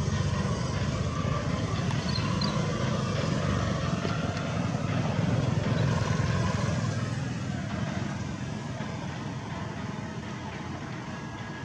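A low rumbling noise that swells over the first six seconds or so and then slowly fades.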